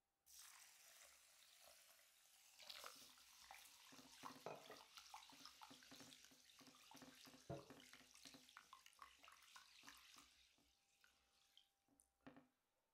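Tap water pouring into a glass bowl of raw rice, then a hand swishing and rubbing the grains in the water with many small splashes, as the rice is washed of its starch. The splashing thins out to a few scattered splashes near the end.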